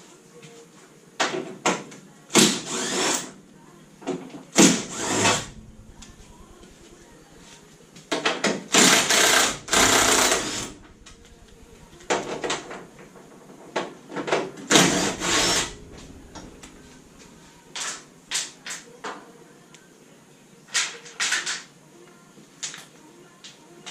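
Tool work on a classic Mini's engine: irregular bursts of rapid mechanical clicking and clatter, several short ones and one longer run of about three seconds, with quiet gaps between them.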